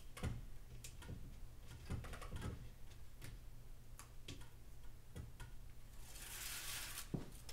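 Double-sided tape being pressed by hand onto a window frame: scattered soft taps and clicks, then a rasping rustle lasting about a second near the end, followed by one more click.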